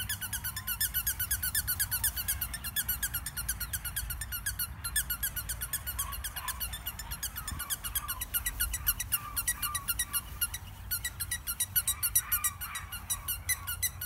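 German Shepherd puppies giving soft squeaks and whimpers, over a fast, steady high chirping.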